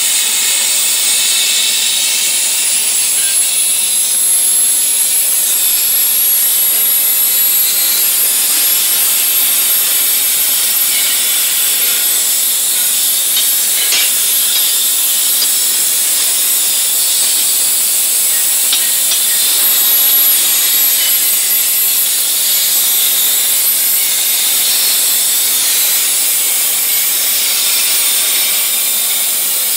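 CNC air plasma torch cutting through metal plate: a loud, steady hiss with a thin high whine over it, starting abruptly as the arc strikes.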